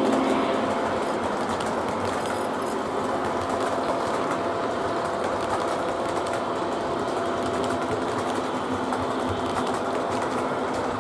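O gauge model box cars rolling on three-rail track: a steady whirring rumble of wheels on rail, with faint clicks over the rail joints.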